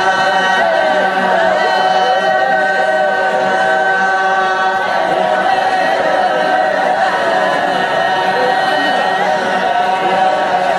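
Wodaabe male dancers chanting together in a group: many voices holding long, drawn-out notes at several pitches at once, steady and unbroken.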